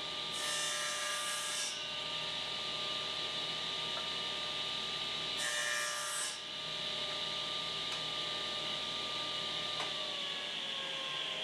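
Table saw running with a steady motor whine while its blade cuts 1/4-inch Baltic birch plywood twice, once about half a second in and again around five and a half seconds in. Near the end the motor's pitch starts falling as the saw winds down.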